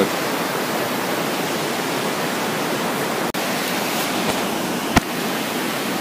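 Steady rush of falling and flowing water from a waterfall stream, an even hiss. There is a single sharp click about five seconds in.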